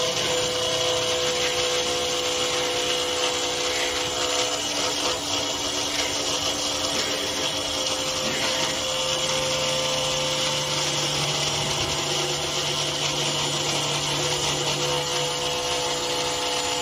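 Small DC-motor spindle of a hobby CNC router running steadily, its drill bit cutting into plywood; a steady whine with a rough cutting noise.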